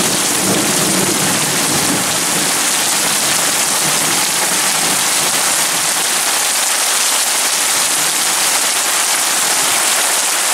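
Heavy rain pouring down in a thunderstorm, a loud, even hiss of downpour.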